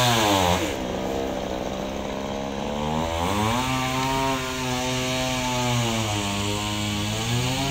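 An engine running, its pitch dropping about half a second in, then revving back up a little after three seconds and holding steady. A high hiss of wood being sawn stops just under a second in.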